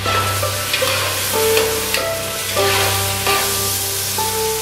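Food frying in oil in a large aluminium pot, sizzling as it is stirred with a spoon. Background music with held notes plays over it.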